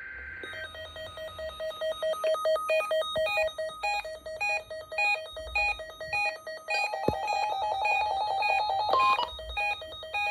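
Electronic square-wave beeps in a quick, repeating melodic pattern over a held note. The pattern grows louder and busier about two-thirds of the way through.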